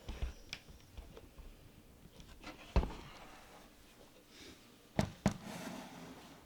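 Plastic Lego bricks being handled and snapped together: scattered sharp clicks and knocks, the loudest a single click near the middle and two close together about five seconds in.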